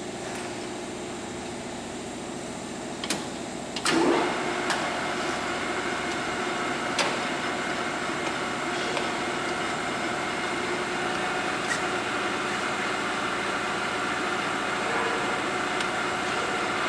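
Takisawa TSL-800D engine lathe running, its gearing humming with several steady tones. About four seconds in there is a click and then a sharp clunk, and from then on the gear noise is louder and fuller, as the lathe is switched over to threading feed.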